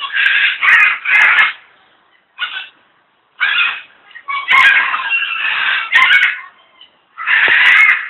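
Macaws giving loud, harsh squawks, about eight in irregular runs, some short and some drawn out for nearly a second.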